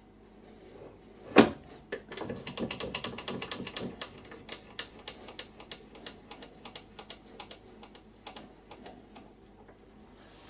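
One sharp metallic knock about a second in, then a run of quick, irregular clicks and taps that thin out toward the end: a hex collet block being turned to its next face and reclamped in a milling vise.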